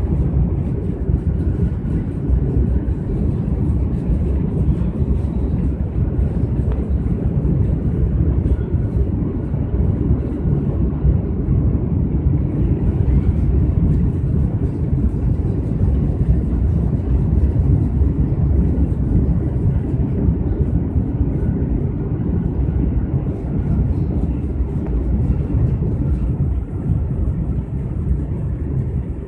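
Steady low rumble inside a high-speed train carriage as the train runs at speed.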